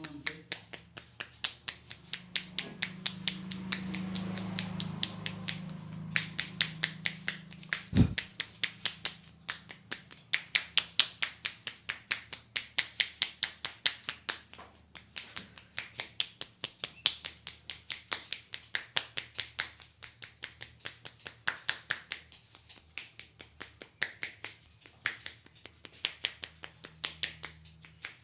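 Traditional Indian head massage: the barber's hands tap and clap on the scalp, making rapid crisp clicking and snapping sounds, several a second, in runs with brief pauses. A low rumble swells and fades in the first few seconds, and a single sharp thump comes about eight seconds in.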